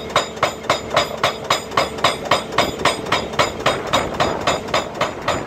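Hydraulic breaker on a Volvo tracked excavator hammering a limestone boulder: a fast, steady run of blows, about four to five a second, over the excavator's engine running.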